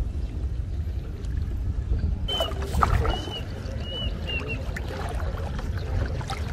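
Water splashing and sloshing as people wade through a muddy pond, beginning a little over two seconds in, over a steady low rumble. Short high chirps come a few times.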